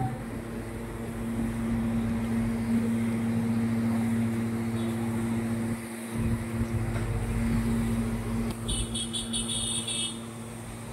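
Steady machine hum holding one low, even pitch, with a brief dip about six seconds in. Near the end a run of quick, high-pitched pulses joins it.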